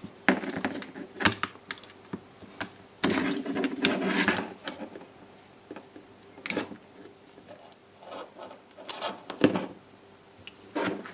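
Hands handling small wires, a plug connector and plastic parts of a cordless impact wrench being rewired: irregular clicks, taps and rubbing, busiest a few seconds in.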